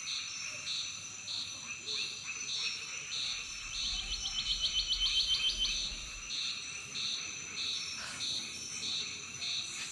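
Night chorus of insects and frogs: a steady high-pitched drone under a call that pulses about twice a second, with a quick run of clicking calls about four to six seconds in.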